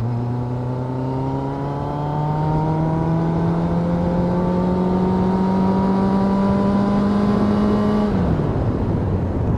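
Suzuki Katana 750's inline-four engine pulling in gear under steady throttle, its pitch rising slowly, then the revs falling away as the throttle closes about eight seconds in. Wind and road noise run underneath.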